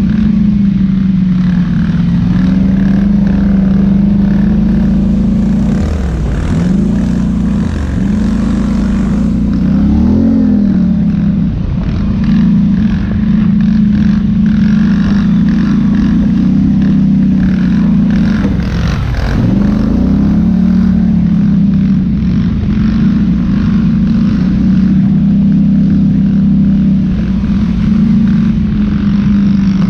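ATV engine running steadily as the quad is ridden along a rough dirt trail, its pitch dipping and picking back up several times as the throttle eases off and opens again.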